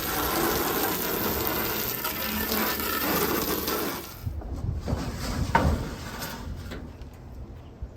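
Garden hose spraying water onto panels, a steady hiss that cuts off about four seconds in; a few light knocks and rustles follow.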